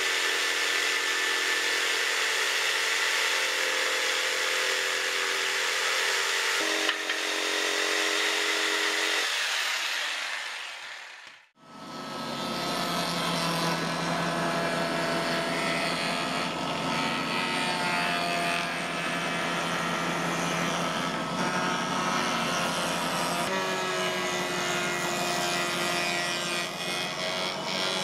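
Electric jigsaw running, its blade cutting through a wooden board, which fades out after about eleven seconds. Then a router table's spinning bit runs steadily, cutting a 45–60 degree chamfer around the edge of a round wooden barrel head.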